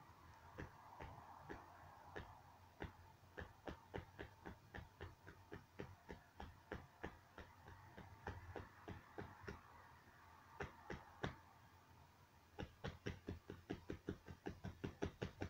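Faint, irregular clicks and taps from a white pigeon moving about on the floor, two or three a second, with a brief pause about twelve seconds in and then coming quicker near the end.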